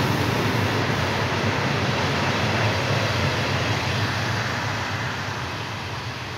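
Loaded open freight wagons rolling past on the rails: a steady noise of wheels on track that fades over the last couple of seconds as the end of the train goes by.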